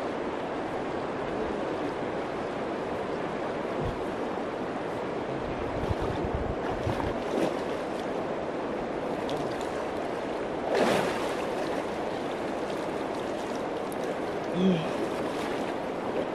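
A shallow river flowing steadily, with water splashing as a person wades in, and a louder splash about eleven seconds in.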